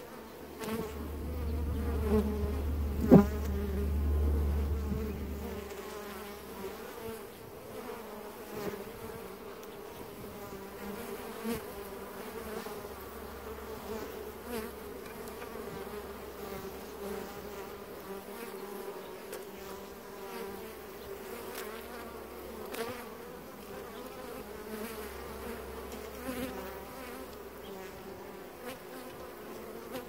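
Honeybees buzzing at a hive entrance: a steady, wavering drone of many bees, with individual bees' pitches rising and falling as they fly past. A low rumble runs through the first five seconds or so, and there is a single sharp click about three seconds in, with occasional small ticks afterwards.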